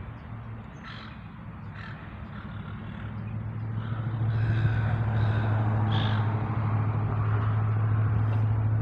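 A low, steady engine drone that swells louder from about three seconds in and then holds, with a few short bird calls over it.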